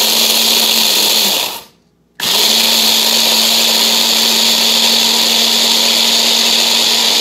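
Electric hand blender with a chopper bowl attachment running, crushing cornstarch (maisena) biscuits into crumbs. The motor cuts out about a second and a half in, then starts again about half a second later and runs steadily.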